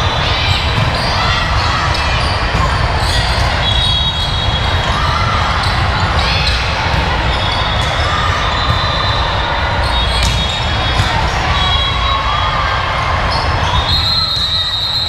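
Ball hits and the din of a busy gym during a youth match: sharp smacks of the ball over a constant hubbub of players and spectators.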